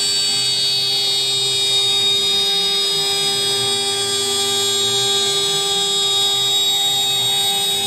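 CNC router's 3 kW water-cooled spindle running at speed with a steady high whine while the bit cuts a curved profile in a wooden board. Lower tones rise and fall underneath as the head moves along the cut.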